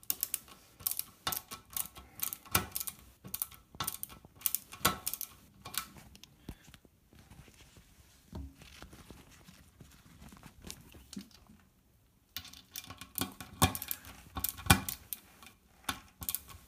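Screwdriver clicking in short irregular runs as a toilet seat hinge fixing is screwed down as tight as it will go, with a pause of a few seconds around the middle.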